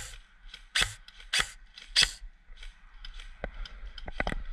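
Airsoft rifle fired in four single shots, each a sharp crack, a little over half a second apart. A few quieter clicks and knocks follow near the end.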